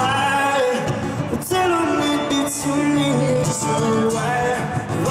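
Live pop song with singing over instrumental backing.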